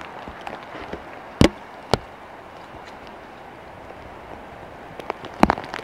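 Walking on a wet forest path: a few sharp knocks and thuds, two loud ones about a second and a half in and more near the end, over a steady hiss.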